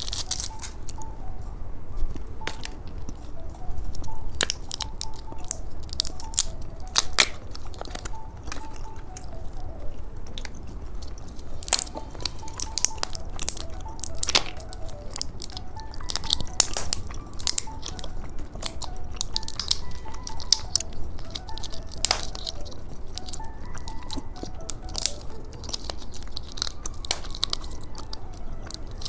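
Close-miked biting, crunching and chewing of strawberry chocolate and other candies, with many sharp crisp clicks. Soft background music plays throughout.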